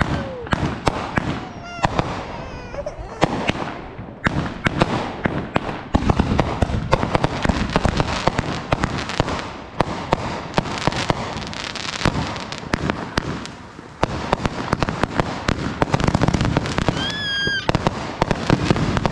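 Aerial fireworks going off in a rapid string of bangs and crackling bursts, densest in the middle. There are a few short whistling tones near the start and again near the end.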